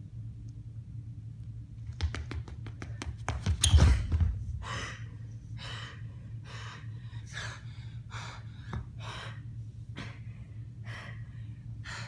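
A person breathing hard in loud, rhythmic gasping breaths about once a second, after a quick run of knocks and a heavy thump about four seconds in. A low steady hum runs underneath.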